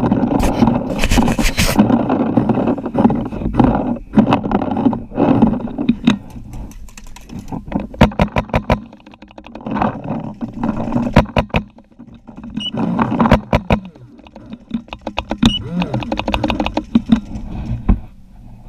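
Paintball markers firing several strings of rapid shots, about five a second, over a rough background of movement and distant voices.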